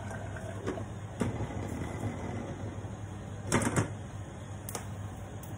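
Light knocks and clatter of cookware and utensils being handled at a stovetop over a steady low hum, loudest a quick run of clacks about three and a half seconds in.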